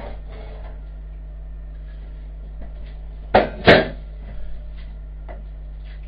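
Two sharp knocks of kitchenware against an enamelled cooking pot, close together about three and a half seconds in, as ribs are laid into the pot, followed by a few lighter clicks. A steady low hum runs underneath.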